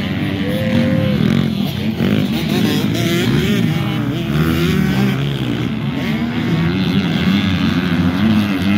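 Several motocross dirt bikes racing, their engines revving up and down, with the rising and falling pitches of different bikes overlapping.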